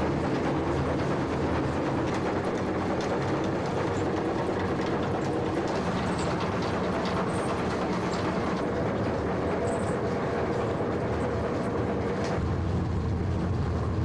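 Cotton-ginning machinery running steadily: a constant mechanical rattle over a low hum.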